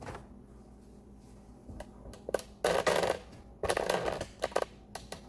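Cloth rag being handled and rubbed, as in wiping down a microwave door: two short bursts of rustling, scrubbing noise in the middle, with a few light clicks and knocks around them.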